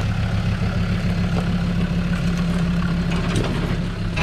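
Off-road 4x4's engine running steadily at low revs as the truck crawls over rocks and down a steep, rough slope.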